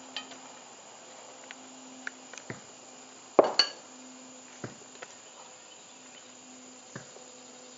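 Metal spatula scraping and clinking against a cast iron Dutch oven and ceramic plates as food is scooped out and served: a scatter of sharp clinks, the loudest a double clink about three and a half seconds in. A faint steady buzz runs underneath.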